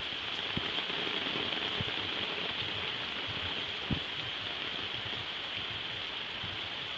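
Steady rain falling, an even hiss with scattered heavier drops landing; one louder drop about four seconds in.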